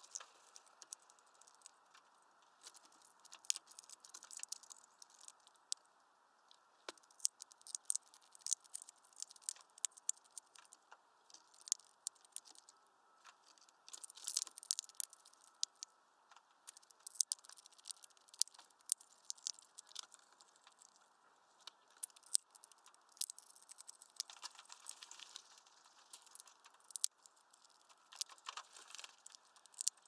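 Hawfinch cracking and husking sunflower seeds in its heavy bill: a string of irregular sharp clicks and crackles, often in quick clusters.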